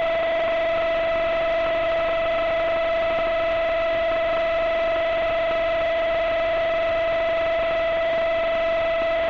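Bridgeport mill head's cutter face-milling a UHMW plastic rail: a steady whine of unchanging pitch over a rushing hiss.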